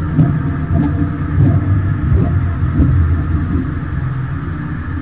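Steady rumble of wind and water noise on a helmet camera's microphone aboard a Flying Junior sailing dinghy under way. About five short knocks come roughly half a second apart in the first three seconds.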